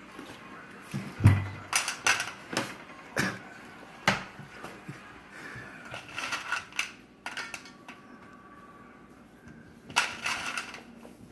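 A boxer eating from a plate at a table: irregular crunching, with clinks and clatters of the plate and cutlery and one louder knock about a second in.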